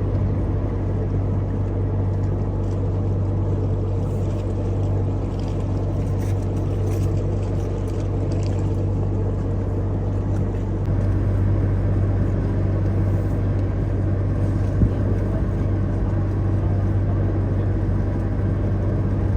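Boat engine running steadily, a low drone that gets slightly louder about halfway through.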